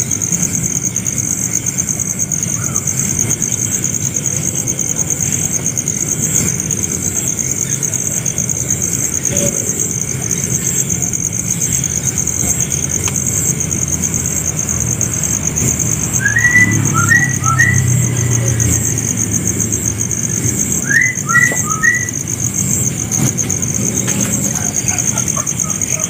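Insects trill steadily in a high, fast-pulsing drone, over a low rumbling background. Twice, past the middle, a bird gives a quick burst of about three short chirps.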